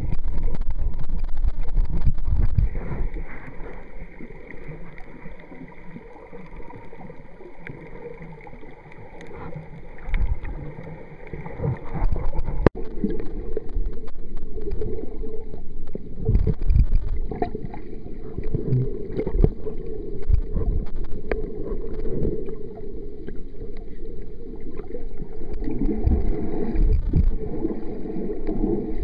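Muffled water sloshing and rushing picked up by an underwater camera during snorkeling. Heavy low surges come in the first few seconds near the surface, then a quieter stretch, a single sharp click about halfway, and a steadier low underwater rush to the end.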